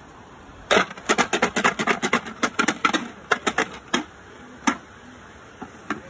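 Langur burja dice rattling inside a green plastic shaker cup held over a plate: a fast run of sharp clicks for about three seconds, then one more click a little later.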